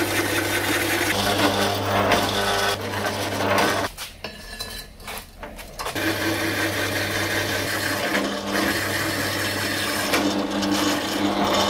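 Pedestal drill running a hole saw through rectangular hollow steel section: a steady motor hum under the grating of the saw's teeth cutting the metal. The cutting breaks off for about two seconds around four seconds in, then carries on.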